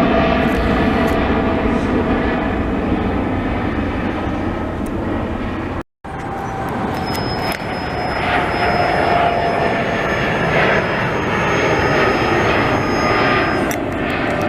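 Jet airliner passing low overhead on landing approach: a loud, steady engine noise with whining tones. The sound breaks off for a moment about six seconds in, then carries on.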